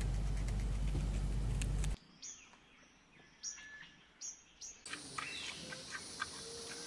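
A sequence of animal clips. First a long-haired hamster nibbles a snack ring over a steady low hum with faint clicks. After about two seconds the hum drops away to a quiet stretch with four short high chirps, then a giant panda chewing bamboo, with crisp crunching and a few chirps.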